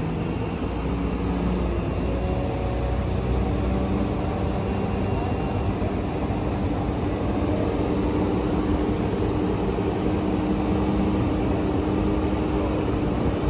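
Heavy diesel engines running steadily: a low, even drone with a few held tones that shift slightly in pitch.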